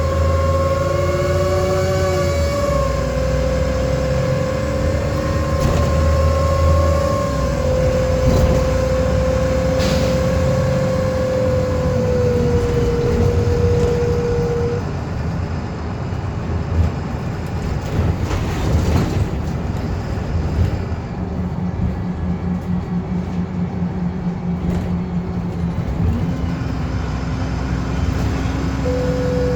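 VDL SB200 bus (Wright Commander) running with a loud whirring whine over its engine and road noise; the whine holds a steady pitch, sags a little, then stops about halfway through and comes back near the end while the engine carries on.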